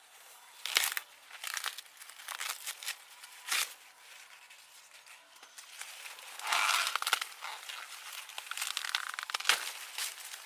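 Dry corn leaves and husks rustling and tearing in irregular bursts, with a few sharp snaps and a louder stretch of rustling a little after the middle.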